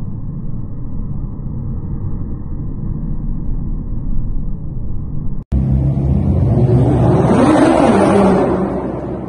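A low, muffled, steady engine rumble from the cars on the track. After a sudden cut about five and a half seconds in, a Nissan GT-R R35's twin-turbo V6 accelerates hard past inside a parking garage, its engine note rising and then falling away, loudest near the end.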